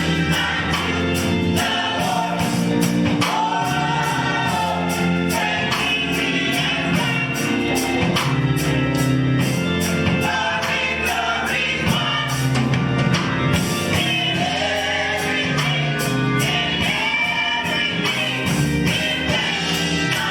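Gospel choir singing with instrumental backing, a tambourine keeping a steady beat.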